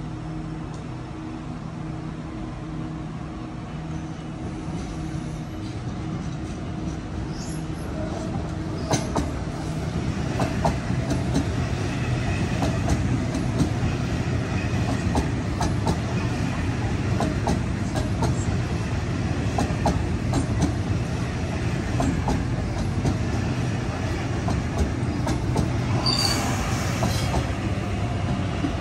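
Sydney Trains Waratah double-deck electric train running past close by: a rumble that builds about a third of the way in, with irregular clacks of the wheels over rail joints and some high wheel squeal near the end.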